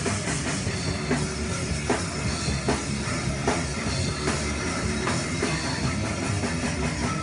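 Heavy metal band playing: a drum kit with a sharp hit about every three-quarters of a second, over electric bass and electric guitar.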